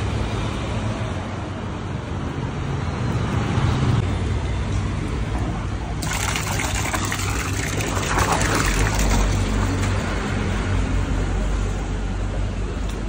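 Steady street and traffic hum, then from about six seconds in, loud splashing and churning of water in a holding tank of live fish.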